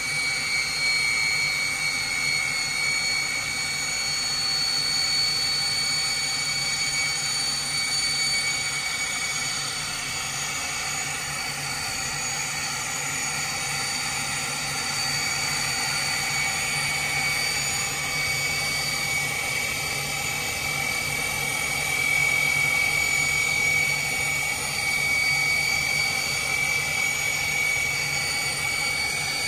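The twin Turbomeca Marboré turbojets of a Morane-Saulnier MS.760 Paris running, heard from inside the cockpit: a steady high-pitched whine over a constant rushing noise.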